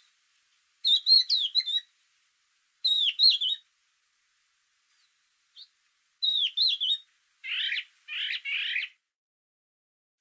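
A songbird singing short, quick phrases of high whistled and twittering notes, a few times with pauses between. Near the end come three runs of fast, buzzier, falling chirps.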